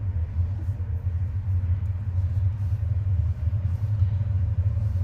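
A steady low rumble with a few faint, light clicks from tightening the set screws of an aftermarket skull shift knob on a car's gear shifter.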